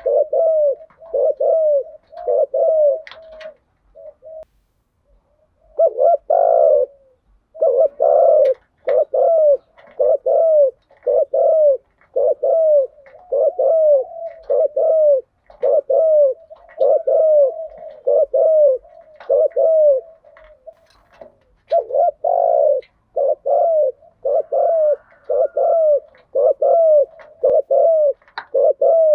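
Spotted dove cooing: short, arched coos repeated quickly, about three every two seconds, in runs with a few brief pauses.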